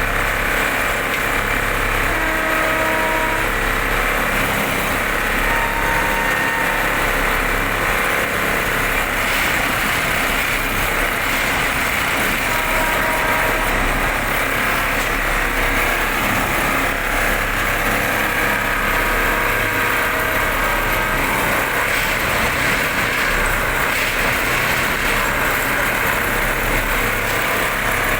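A PCTM machine running steadily: a continuous mechanical drone with a strong low hum, and short faint whistling tones now and then.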